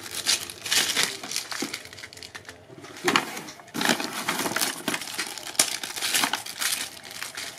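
Crumpled packing paper rustling and crinkling as hands rummage through a cardboard shipping box, in irregular bursts with a short lull a little over two seconds in.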